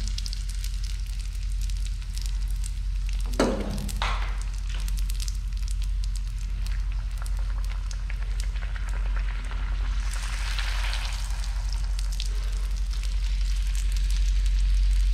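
Golgappa puris deep-frying in hot oil: a steady crackling sizzle, with two sharp knocks a few seconds in. The sizzle grows louder around ten seconds in.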